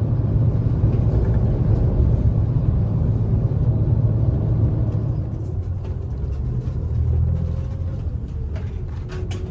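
Road noise heard inside a moving car: a steady low rumble of tyres and engine, a little quieter from about halfway through.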